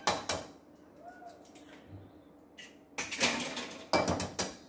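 Eggs being cracked on the rim of a bowl and broken open over crushed tortilla chips: a sharp tap at the start, then two louder crackling knocks about three and four seconds in.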